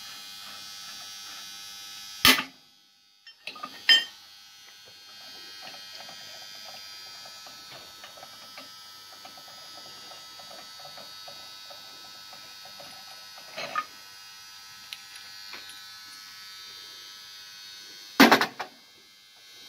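Vertical milling machine running with a steady electric whine. A sharp metallic clunk about two seconds in is followed by a brief lull before it runs again. There is a smaller knock later, and a loud clunk near the end, after which the machine goes quiet.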